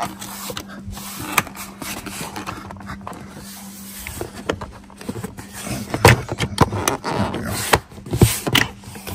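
Plastic car door sill trim being handled and pressed into place: scattered clicks and knocks, coming thicker from about six seconds in, over a steady low hum.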